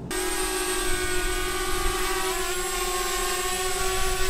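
DJI Spark quadcopter drone hovering, its four propellers giving a steady whine of several tones at once, dipping slightly in pitch about two seconds in.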